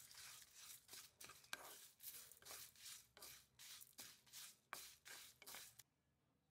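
Spatula stirring dry spices (coriander seeds, lentils, dried red chillies) in a nonstick pan: quick rustling scrapes of the seeds across the pan, about three strokes a second, stopping near the end.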